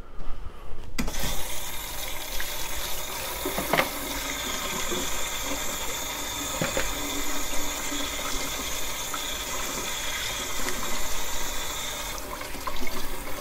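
Kitchen tap running into a sink while hands are washed under it. The water starts about a second in and is shut off near the end, with a couple of light knocks along the way.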